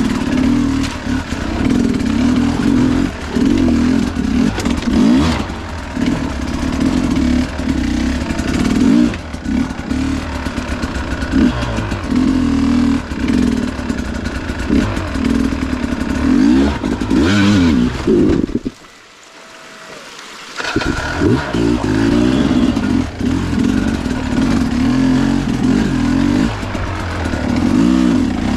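Two-stroke Sherco enduro dirt bike engine revving up and down at low speed. About two-thirds of the way in the engine sound drops out for about two seconds, then picks up again.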